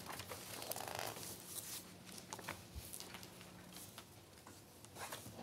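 Quiet meeting-room tone with a steady low hum and scattered faint clicks and rustles of papers being handled at a desk.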